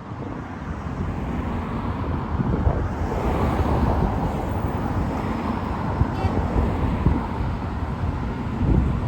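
Street traffic noise, with a vehicle passing that swells about three seconds in and fades back, under wind buffeting the microphone.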